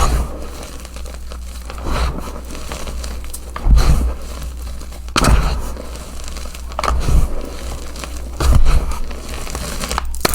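Chunks of gym chalk being crushed and crumbled, crunching crisply several times a second or two apart, each squeeze with a dull low thud.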